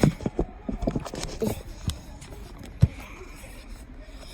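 Handling noise from a camera being set up and repositioned: a run of irregular knocks and clicks, the sharpest a little under three seconds in.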